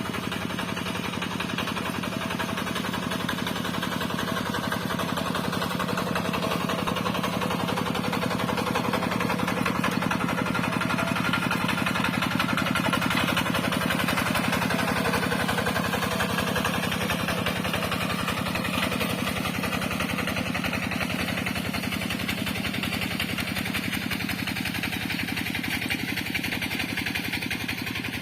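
A rice-field tractor's engine running steadily. It grows a little louder toward the middle and eases off again near the end.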